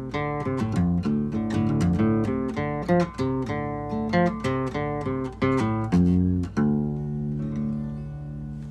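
Acoustic guitar music: a quick run of plucked notes, then, about six and a half seconds in, a final chord struck and left ringing.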